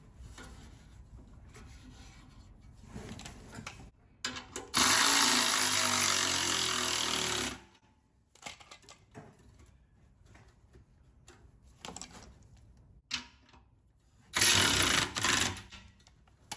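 Electric power ratchet running in two bursts, one of about three seconds and a shorter one near the end, driving an exhaust-tip clamp bolt tight. Light clicks and knocks of the tool and clamp come in between.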